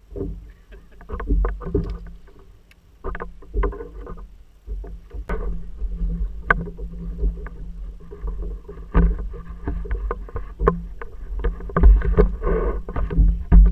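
A kayak on the sea: water lapping and knocking against the hull in irregular splashes and thumps over a low rumble of wind on the microphone.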